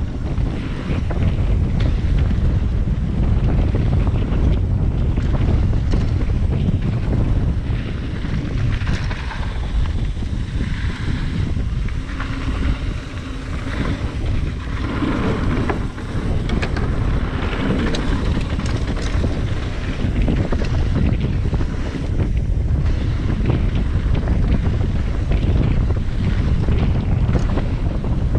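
Wind buffeting the microphone of a handlebar-view action camera during a mountain-bike descent, over the rumble of knobby tyres on a dry dirt trail. Many brief clatters come from the bike over bumps.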